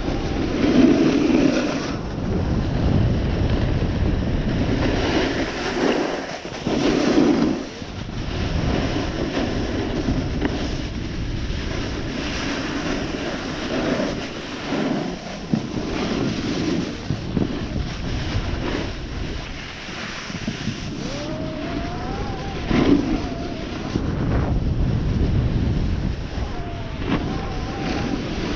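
Wind buffeting the microphone of a body-mounted action camera, over the hiss and scrape of a snowboard sliding across fresh snow, rising and falling in loudness.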